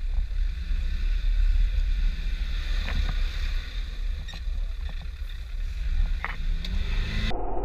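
Off-road 4x4 engine running low and deep under load, rising in pitch near the end as it revs, with wind buffeting the microphone and a few sharp knocks.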